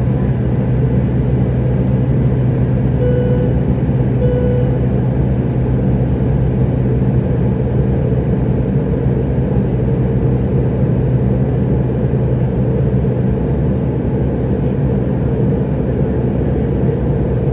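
Steady drone inside a jetliner's cabin during the climb: engine and airflow noise with a strong low hum. Two short, faint tones sound about three and four seconds in.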